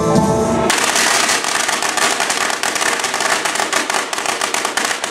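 Music cuts off under a second in and a string of firecrackers goes off, a dense, rapid crackle of pops that keeps going.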